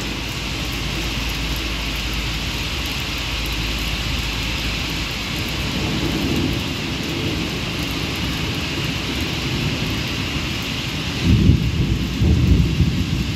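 Heavy rain falling steadily, with rumbles of thunder: a low rumble about six seconds in and a louder, longer one near the end.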